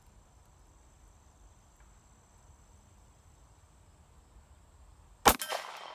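Steady high-pitched trill of insects, then about five seconds in a single sharp, loud handgun shot from a compact carry pistol, with a short ringing tail.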